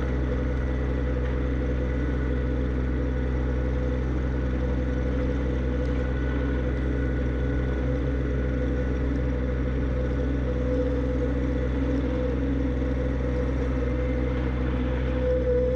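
John Deere 1025R subcompact tractor's three-cylinder diesel engine running steadily, with a slight rise in pitch near the end.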